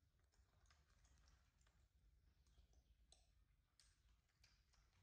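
Near silence: room tone with faint, scattered small clicks and ticks.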